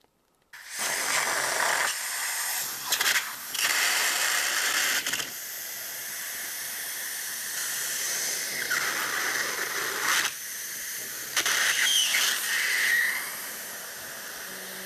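Helium hissing out of a helium tank's nozzle into the blimp's balloon as it inflates. The hiss starts about half a second in and swells louder twice, about 3 to 5 seconds in and again about 11 to 13 seconds in.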